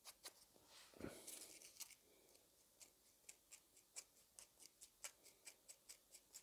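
Faint, quick scratching strokes of a worn abrasive sanding sponge on a tiny plastic model-kit part, about three strokes a second, with a soft knock about a second in.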